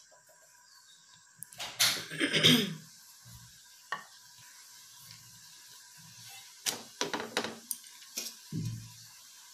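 Kitchen utensils clattering and knocking a few times, loudest about two seconds in, over a faint steady hum.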